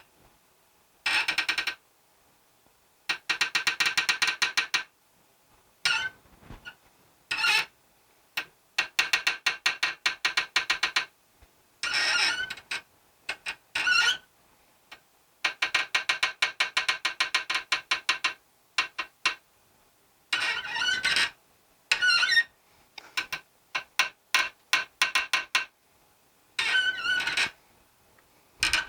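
Repeated bursts of rapid, evenly spaced ratcheting clicks from a tool working on metal, each lasting about a second or two with short pauses between; several bursts carry a high metallic squeal.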